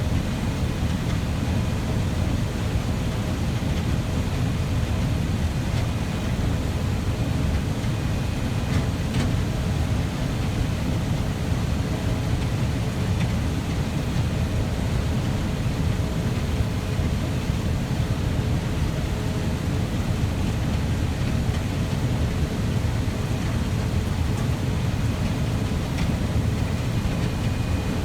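Heavy farm machinery running steadily: a deep, even drone with a few faint steady whines above it.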